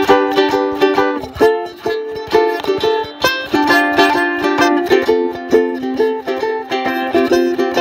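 Ukulele strummed in a steady rhythm, several strokes a second, moving through a few chord changes in a simple original tune.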